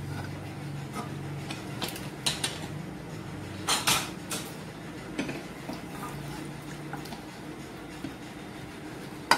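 Aluminium pressure cooker's inner-fitting lid being worked loose and tilted out of the pot: scattered metal clinks and knocks, the loudest cluster about four seconds in. Later, a wooden spoon stirs the stew in the pot.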